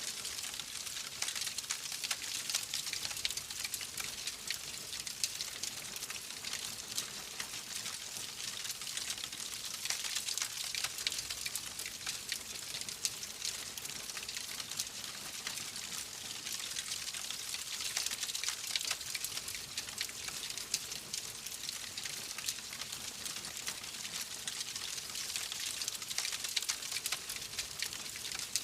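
Wood fire burning in a fireplace, a steady hiss with many small, quick crackles and pops throughout.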